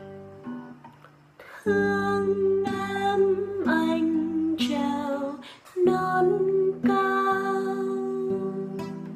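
Classical guitar fingerpicked in a slow chord pattern. It dies away about a second in, then new chords come in at about two seconds and twice more later, each ringing on.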